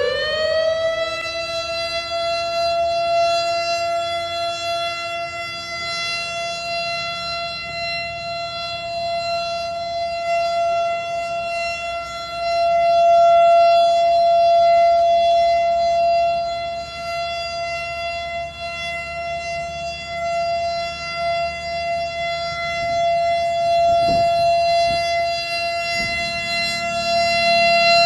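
Civil defense siren sounding one steady, high tone with many overtones, swelling louder for a few seconds near the middle.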